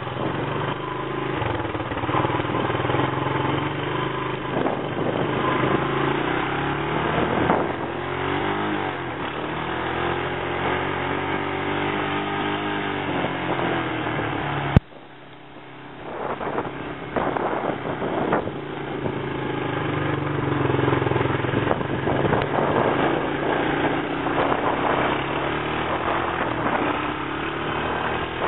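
1984 Honda ATC 200M three-wheeler's four-stroke single-cylinder engine running under way, its pitch rising and falling as the rider speeds up and lets off. About halfway through there is a sharp click and a brief drop in level, then the engine sound builds again.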